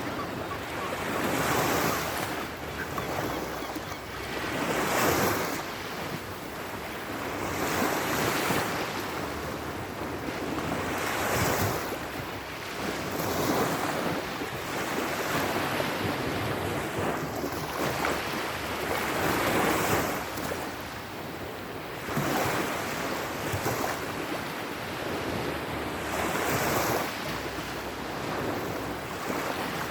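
Sea surf: waves washing in and drawing back, a rushing noise that swells and fades every few seconds.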